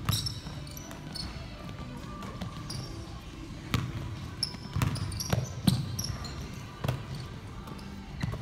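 Basketball bouncing on a hardwood gym floor as players dribble, a series of irregular thuds, mixed with short high squeaks of sneakers on the court.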